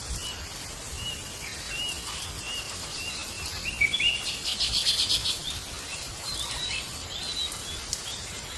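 Small birds chirping: a series of short, high calls, some dropping in pitch, with a quick run of ticking notes about halfway through.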